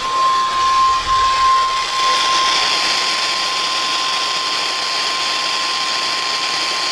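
NOAA Weather Radio's single-tone warning alarm, one steady high tone near 1 kHz, held throughout over heavy radio static hiss. The tone marks the start of a new warning broadcast.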